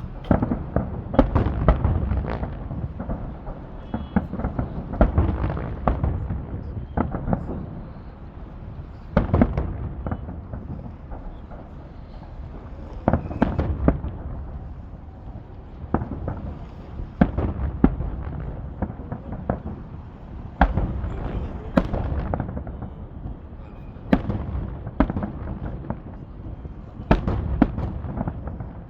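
Fireworks salute: a string of booms and sharp cracks from shells bursting in the sky, coming irregularly every one to a few seconds, each followed by a low rumble.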